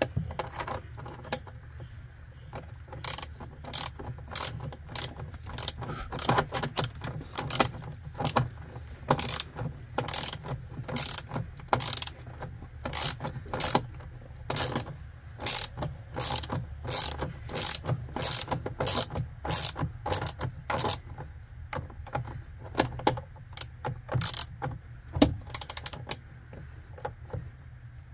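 Hand socket-wrench ratchet clicking in short runs of quick clicks, again and again, as it tightens a battery cable's terminal bolt while a second wrench holds the nut.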